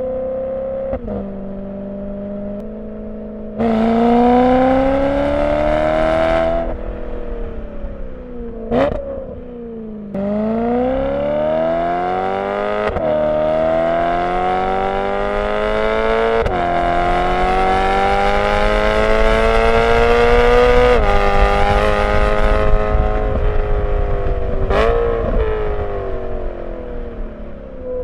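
BMW E92 M3's V8 through a Borla ATAK exhaust fitted with venturis, pulling through the gears: the exhaust note climbs steadily, then drops sharply at each upshift, several times over. Short throttle blips come about nine seconds in and again near the end. Recorded by a microphone mounted on the outside of the car.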